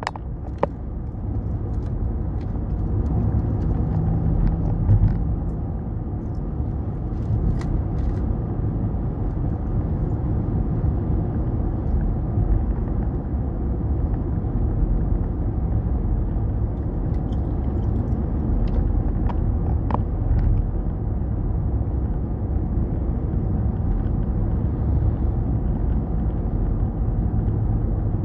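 Steady low rumble of a car driving at freeway speed, tyre and engine noise heard from inside the cabin, with a few faint light ticks.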